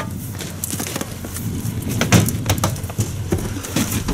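Scattered knocks and clatter of gear being handled in an aluminium boat, with the rustle of a rope line being coiled by hand.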